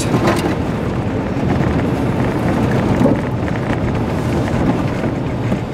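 A vehicle driving on a wet road, heard from inside the cabin: a steady low rumble of engine and tyres with a hiss above it.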